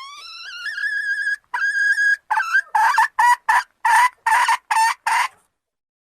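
Red junglefowl (wild chicken) calling. A long note rises and levels off into a held tone, a second held note follows, then comes a run of about eight short sharp notes, roughly three a second.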